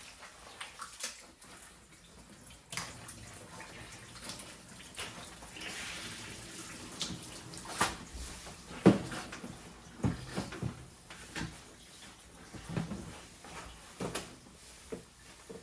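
Water sloshing and splashing in a tub or basin, broken by irregular knocks and clatter, the sharpest knock about nine seconds in, in a small room.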